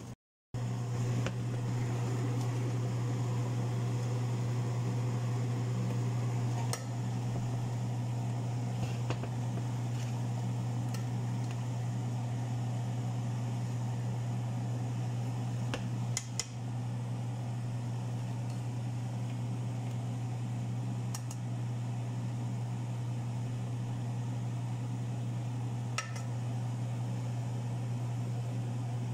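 Steady low hum with a few scattered clinks of a slotted metal spoon against a metal pot as coloured rice is stirred.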